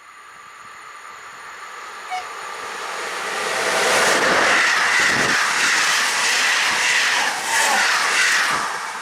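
A train approaching and passing by, its rumble and wheel noise on the rails swelling to a loud, steady peak about four seconds in and easing off near the end.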